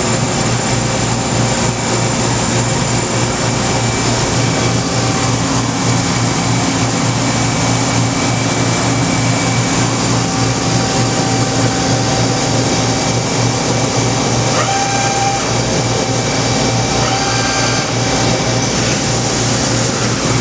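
Mori Seiki SH-400 CNC horizontal machining center running under power: a steady machine hum with fixed high whines. A few short, higher tones join in about 15 and 17 seconds in.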